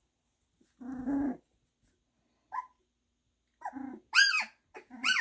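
Goldendoodle puppies about two and a half weeks old, just finding their voices, vocalizing as they wrestle: a low growl about a second in and a short yip. Near the end comes a second growl and then high-pitched shrieks.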